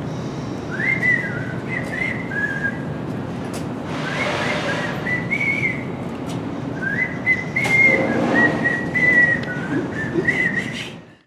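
A person whistling a tune in three phrases with short pauses between them, over a steady background hum and a few light knocks; it fades out at the very end.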